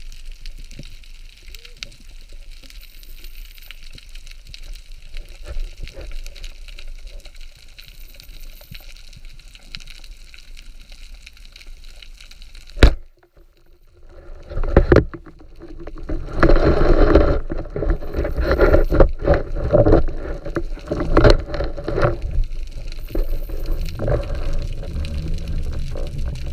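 Underwater sound through a camera housing: faint hiss and ticking, then a single sharp click about 13 seconds in. From about 15 seconds there is loud, irregular knocking and rattling with a low rumble, as a speargun is fired and the fish is taken on its shaft.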